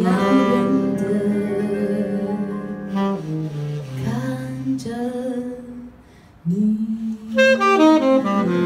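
Jazz trio playing: saxophone holding long notes over electric piano, with a woman's sung notes. The music drops away briefly about six seconds in, then comes back with quicker, stepping notes.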